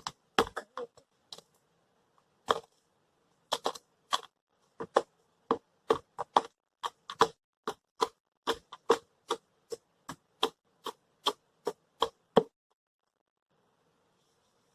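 Repeated sharp knocks of something being smashed by hand. They are irregular at first, then settle into a steady beat of about two to three blows a second, and stop about twelve seconds in.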